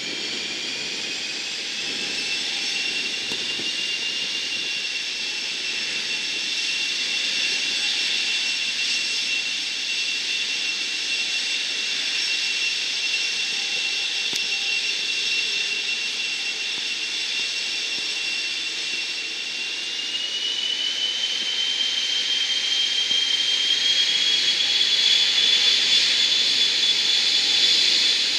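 Boeing RC-135W Rivet Joint's four CFM56 (F108) turbofans whining steadily as the jet taxis. About two-thirds of the way through the whine steps up in pitch, and it grows louder near the end.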